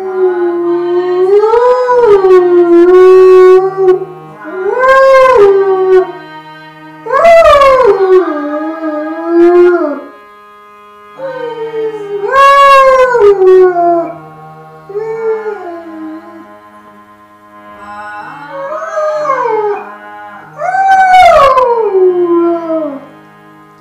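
A dog howling along to music: a series of drawn-out howls, each rising and then falling in pitch, with short gaps between them. Steady held instrumental notes sound underneath and shift to a new pitch now and then.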